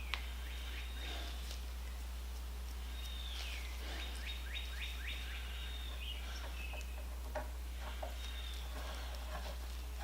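Faint bird chirps, a quick run of falling chirps about three to four seconds in, over a steady low hum, with a few light clicks.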